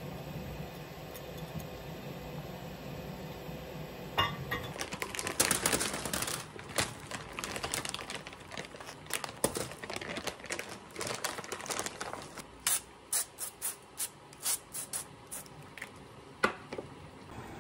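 A low steady hum, then a plastic bag crinkling as frozen breaded chicken is shaken out onto a paper air-fryer liner, followed by a cooking-oil spray bottle giving about ten short, quick sprays over the chicken.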